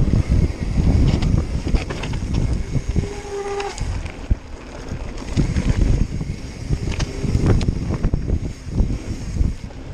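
Wind buffeting the microphone of a mountain bike's point-of-view camera on a fast descent down a dirt trail, with the bike rattling and knocking over bumps. A brief pitched squeal comes about three seconds in.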